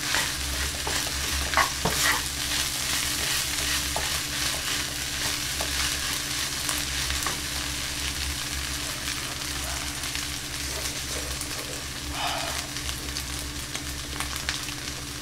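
Kimchi fried rice sizzling in a frying pan as a wooden spatula stirs and scrapes it. Scattered knocks of the spatula against the pan are most frequent in the first couple of seconds.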